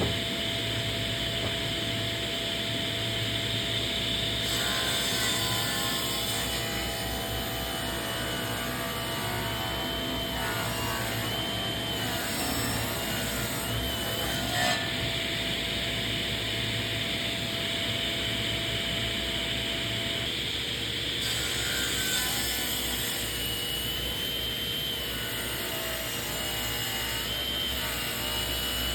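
Large woodworking power saw running steadily, its motor and blade giving a constant drone with a high whine that wavers slightly.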